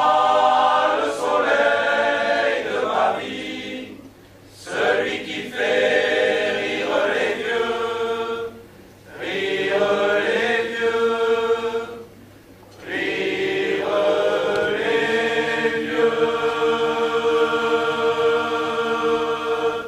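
Male voice choir singing a cappella in harmony, in phrases broken by short pauses, ending on a long held chord of about seven seconds that cuts off together near the end.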